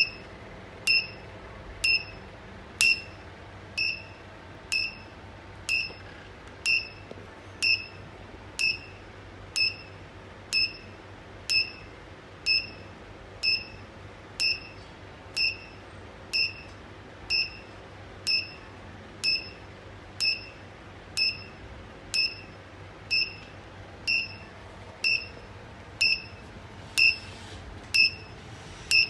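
Electric fence pulse indicator beeping about once a second: each fence shock pulse gives a sharp click and a short high beep. The steady beeping signals that the fence is live and pulsing.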